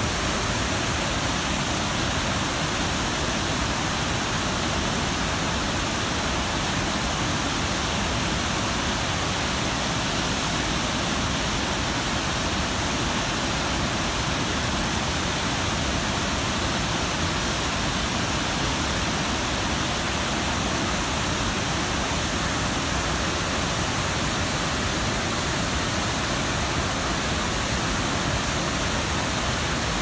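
Large waterfall: a steady, unbroken rush of falling water.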